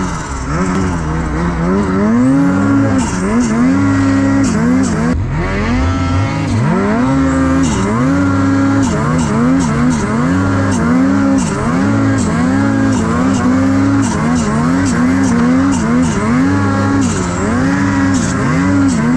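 Ski-Doo Gen 5 Turbo R snowmobile's turbocharged two-stroke engine running hard, its revs rising and falling about once a second as the throttle is worked while riding. About five seconds in, the revs drop low and then climb back up.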